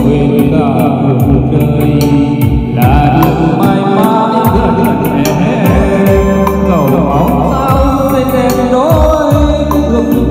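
Loud live music played through a PA system: an instrumental passage of the song with a sliding melodic line over a steady drum beat.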